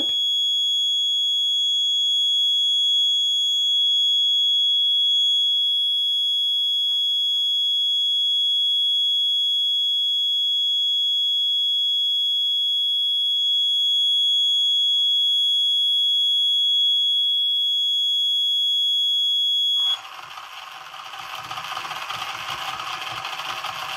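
Piezo buzzer on an Arduino accident-detection robot car sounding a steady, high-pitched alarm tone, the accident alert while the GSM module sends the SMS. It cuts off suddenly about 20 seconds in, and the car's two small DC gear motors start a quieter, even whirr.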